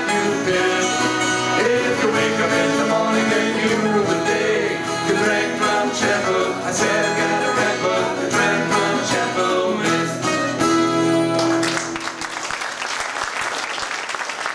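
Live folk band of acoustic guitars, mandolin and cello playing with sung vocals, ending on a held final chord about twelve seconds in. The audience then breaks into applause.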